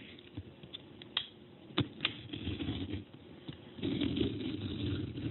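Cutting the packing tape on a cardboard parcel with a hand-held cutter: scattered small clicks and scratches of blade and hand on tape and cardboard, then about four seconds in a denser scraping rasp as the blade runs along the tape for about a second.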